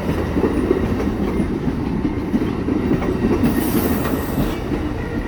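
Amtrak Texas Eagle passenger train rolling past: a steady rumble of wheels on rail with clattering over the joints. A brief high hiss comes about three and a half seconds in.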